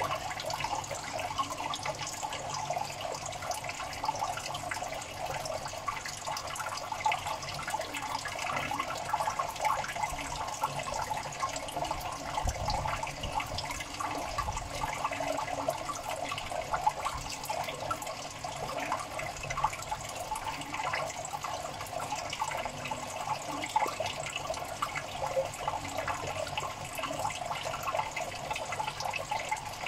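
Water trickling and bubbling steadily in a crayfish tank, full of small crackling splashes.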